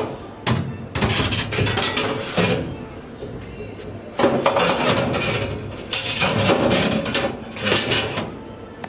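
Metal and plastic parts of a stainless steel under-counter dishwasher clattering and scraping as they are handled, with several sharp knocks and rubbing between them.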